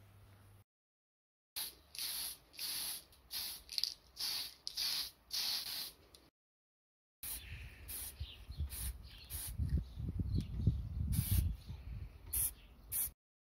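Aerosol spray can sprayed in a run of short hissing bursts, each well under a second. In the second half the bursts continue over a low rumble of wind buffeting the microphone.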